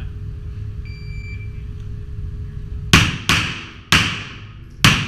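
A shot-timer start beep, then about a second and a half later a pistol fires four shots in quick succession, each ringing off the walls of an indoor range, over a steady low rumble.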